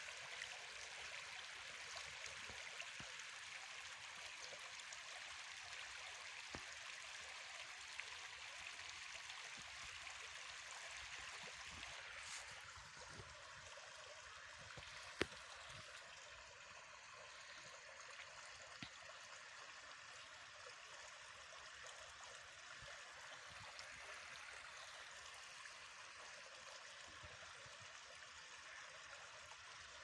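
Shallow stream running over stones: a faint, steady rush and trickle of water that drops slightly in level about twelve seconds in. A single sharp click about halfway through.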